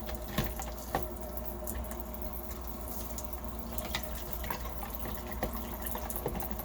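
Water sloshing and dripping, with small scattered clicks and taps, as a coffee maker part is dunked and handled in a bath of CLR and water to dissolve calcium deposits.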